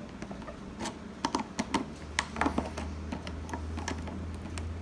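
Light, irregular metallic clicks and taps of tools working on a damaged gumball machine lock, over a low steady hum.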